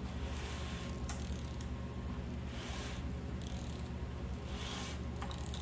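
Rebuilt AMC 304 V8 short block being turned over by hand: a few light clicks and soft swishes as the crankshaft, pistons and cam rotate. It turns over smoothly, nice and tight.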